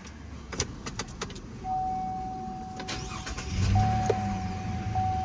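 Chevy Colorado ZR2 truck being powered up: a few quick clicks, then a steady high electronic warning tone from the dash. About two-thirds of the way in, a low steady hum of the engine starting and idling joins it.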